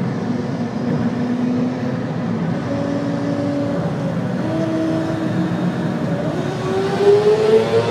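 Yamaha R6 inline-four engine through an Akrapovic exhaust, running under way at a steady pitch that steps up a little. About six seconds in it climbs in a rising note as the bike accelerates.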